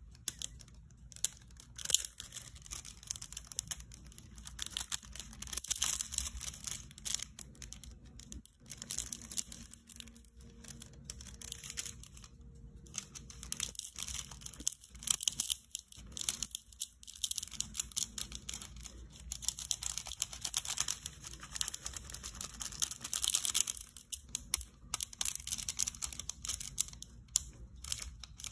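Snakeskin nail-art transfer foil crinkling and crackling as it is pressed onto long gel nails and peeled off, in quick, irregular crackles with brief pauses.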